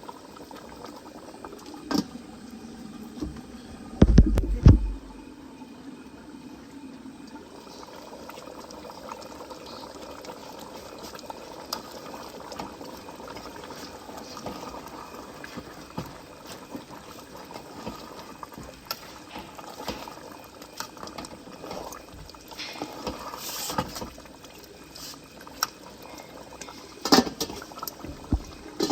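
A pot of egusi-based soup bubbling at a steady boil, with scattered small pops. A loud low thump comes about four seconds in, and a few sharper knocks come near the end.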